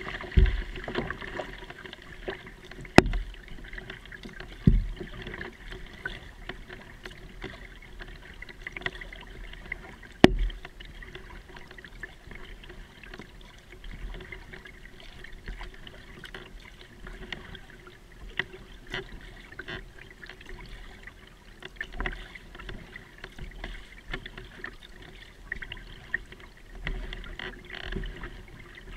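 Plastic kayak being paddled on calm water: steady splashing and dripping from the paddle strokes, with many small ticks and a few sharp knocks, the loudest about three, five and ten seconds in.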